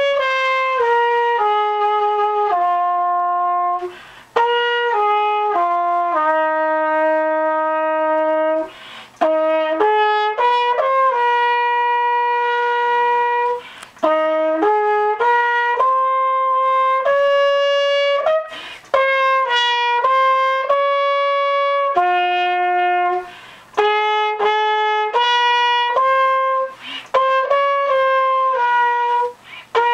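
Solo trumpet playing a slow melody: a single line of notes, some held for a second or more, with brief gaps every four or five seconds.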